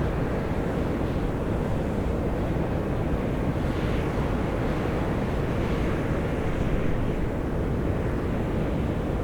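Volcanic fumarole vents on Mt. Io (Atosanupuri) blasting out steam in a steady, deep roaring rush that holds an even level throughout.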